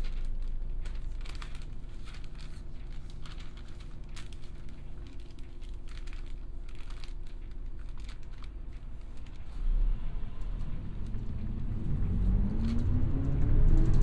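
City bus engine heard from inside the cabin, idling with scattered clicks and rattles. A low thump comes about ten seconds in, then near the end the engine speeds up with a rising whine and grows louder as the bus pulls away.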